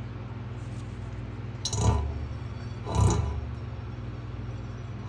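Tire of a hand-spun motorcycle front wheel rubbing on the fender twice, about a second apart, over a steady low hum. The rub comes from the wheel being out of true by about half an inch.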